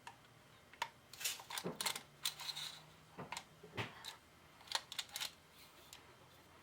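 Parts of a Remington 870 pump shotgun being fitted back together by hand: a series of irregular metal clicks and clacks.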